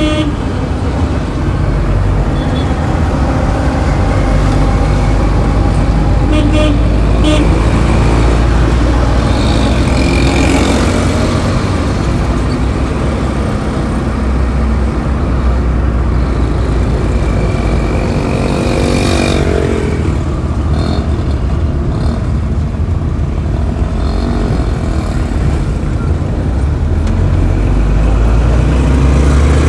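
Busy road traffic: a steady rumble of passing vehicle engines and tyres, with occasional car horn toots and an engine revving up about two-thirds of the way through.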